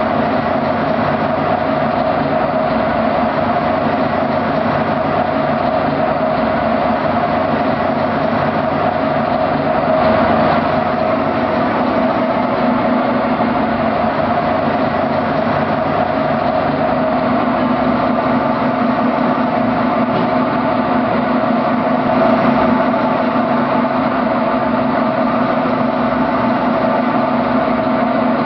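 Top-loading washing machine running: a loud, steady mechanical drone with a constant hum that does not let up. The low part of the hum grows a little stronger past the middle.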